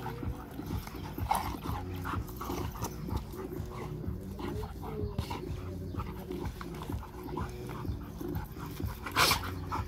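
Two dogs play-fighting, growling at each other throughout, with a sharper, louder sound about nine seconds in.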